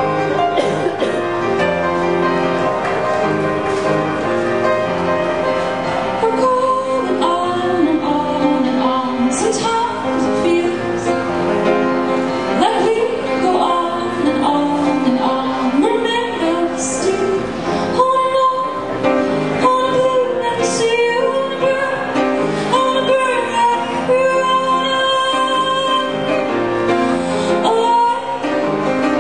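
A woman singing a song while accompanying herself on a grand piano, live.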